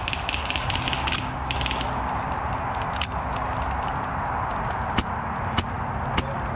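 Suppressed HPA airsoft HK416 replica firing: a short rapid burst of mechanical clicks at the start and another around a second and a half in, then single shots every second or two.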